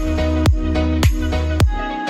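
Background electronic music with a steady kick-drum beat, a little under two beats a second, over a held bass line and sustained chords.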